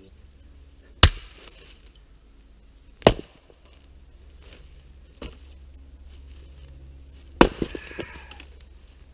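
Double-bit axe splitting firewood: three hard chops about two and four seconds apart, with a lighter strike between them, and a short clatter of knocks after the last chop.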